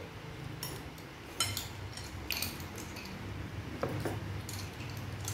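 Metal spoons clinking and scraping against ceramic bowls while eating, a handful of separate clinks with the sharpest about a second and a half in.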